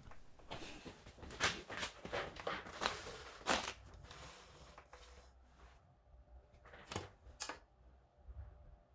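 Spanners and motorcycle parts being handled during rear-axle and chain-adjuster work: a run of light clicks and knocks over the first few seconds, then two more clicks near the end.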